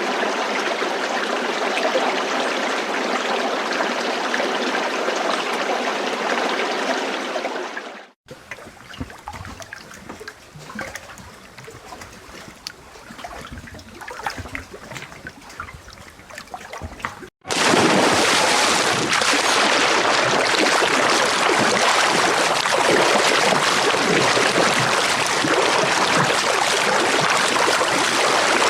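Running water, in three stretches joined by abrupt cuts: steady flowing water, then about eight seconds in a much quieter trickle with scattered drips and splashes, then louder rushing water from about seventeen seconds on.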